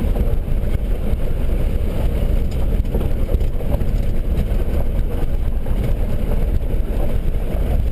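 Land Rover driving over a rough, stony dirt track, heard from inside the cabin: a steady low rumble of engine and tyres with constant small knocks and rattles.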